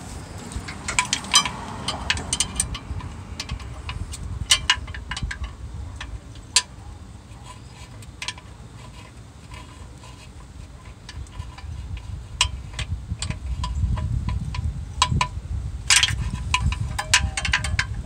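Irregular metallic clinks and taps, some ringing briefly, as a socket and extension are worked into the bellhousing opening onto a flexplate bolt. A low rumble of handling noise grows in the second half.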